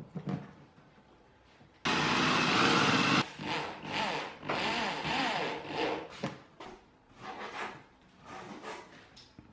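Cordless drill driving screws through a metal speaker mounting ring into the pot: one loud run of about a second, starting about two seconds in, then several shorter bursts with the motor speeding up and slowing.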